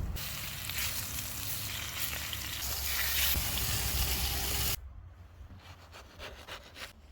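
Bonito sizzling on a grill over a wood fire, a loud even hiss that cuts off abruptly about five seconds in. Faint scattered clicks follow.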